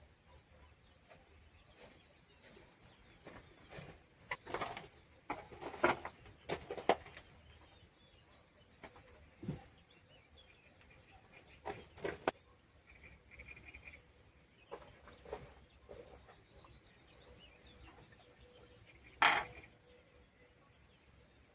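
Birds calling faintly, with a few short high trills, over a quiet outdoor background. Scattered sharp knocks and clicks punctuate it, the loudest near the end.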